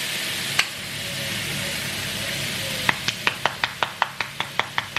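Minced meat and onions sizzling in a frying pan. About three seconds in, a run of quick, even clicks starts, about five a second, as garlic powder is shaken out of its jar.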